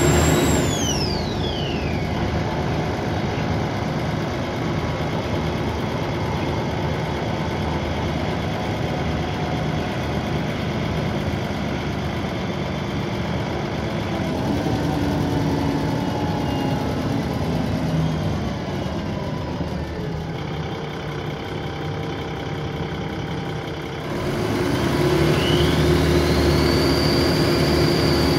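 Dennis Trident 2 double-deck bus's diesel engine and loud turbo whine. The high whine falls away steeply in the first couple of seconds as the bus eases off, and the engine then runs at low speed for about twenty seconds. Near the end the engine grows louder as the bus pulls away again, with the turbo whine rising in pitch.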